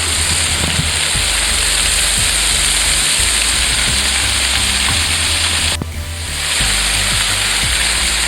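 Steady rushing roar of a waterfall close by, a loud dense hiss that dips briefly about six seconds in.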